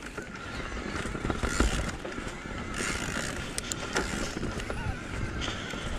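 Electric mountain bike rolling down a gravel and dirt forest trail: a steady crunch and rumble of the tyres over loose stones, with scattered knocks and rattles from the bike over bumps and a faint steady high whine.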